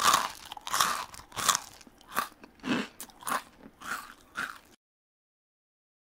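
A run of about eight short crunches, roughly one every half second, with no music under them, stopping short of the end.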